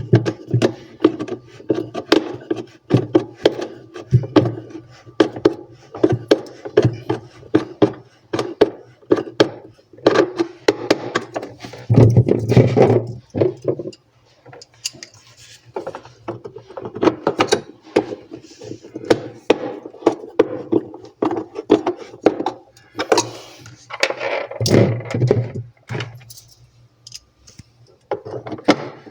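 Repeated clicks, knocks and thunks of plastic and metal parts being handled and fitted as a refrigerator's replacement fan micromotor is put back in place, with a few louder clusters of knocks.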